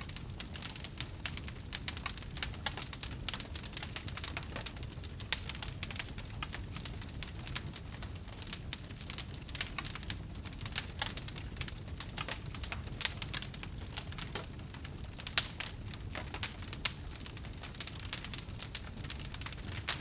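Wood fire burning, with a steady crackle of many small snaps and an occasional louder pop.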